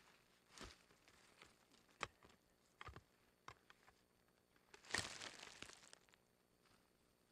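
A digging hoe chopping into leaf-covered forest soil while roots are dug: a few scattered strikes, the loudest about five seconds in, with dry leaves crunching and rustling after it.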